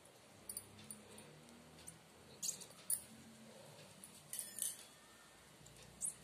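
Faint handling noise from sewing a flower garland: a few scattered rustles and light clicks as hands work the flowers, needle and thread.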